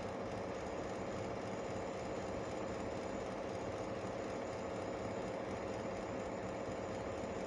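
A steady, unchanging mechanical hum with a constant low drone and no distinct events.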